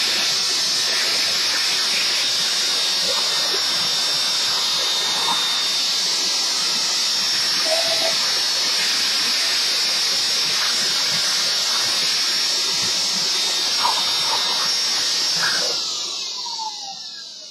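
Electric air blower blowing dust out of a laptop's cooling fan and heatsink: a steady, loud rushing hiss. Near the end it is switched off and winds down with a falling whine.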